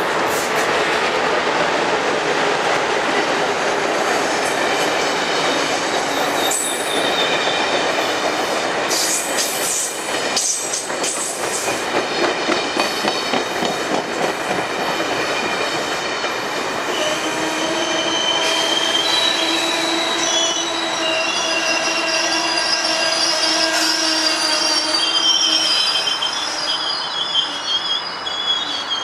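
Passenger train running through a station, a steady rumble of wheels on rail with a few clacks over rail joints. From about halfway through, several steady high-pitched squealing tones rise over the rumble.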